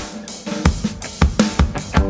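Background rock music with a steady drum-kit beat and guitar.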